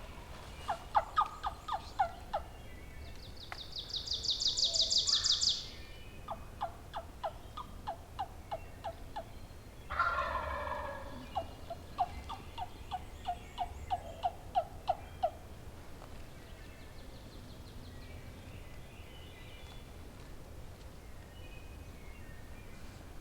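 Wild turkey gobbler gobbling once, about ten seconds in. Runs of sharp, rhythmic turkey yelps come before and after it. A high, fast trill sounds for a couple of seconds a few seconds in, and faint birdsong follows.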